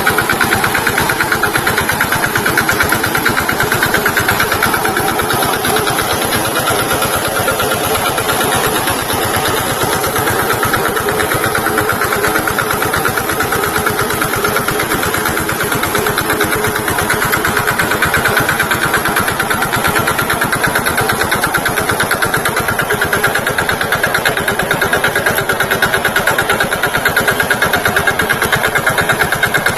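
VST Shakti tractor's diesel engine running steadily, a fast even chugging that holds through without a break.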